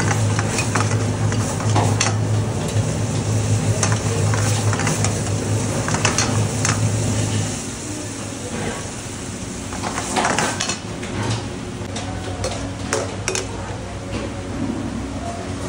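A metal ladle stirring and scraping through a large pot of gravy on the fire, with irregular metal clanks against the pot over a steady sizzle. A low steady hum runs underneath and cuts off about halfway through.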